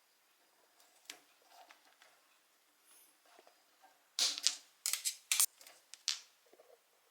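Sharp snips and plastic clicks as nylon cable ties are cut, a quick cluster of them from about four to six seconds in, with a few lighter clicks earlier.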